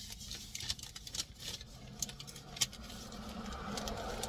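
Irregular small crackles and rustles of a paper fast-food sandwich wrapper being handled.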